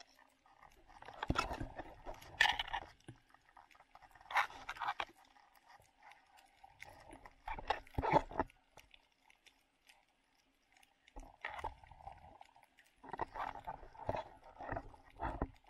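Underwater sound from a camera below the surface: bursts of crackling, bubbling water noise a second or so long, coming every few seconds, with quieter gaps between.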